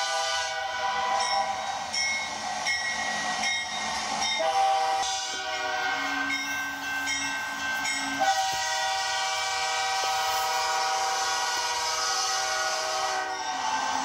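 Diesel locomotive multi-chime air horn sounding a chord, heard played back through computer speakers. It gives a run of short blasts in the first few seconds, then longer blasts, the last held steady for about six seconds.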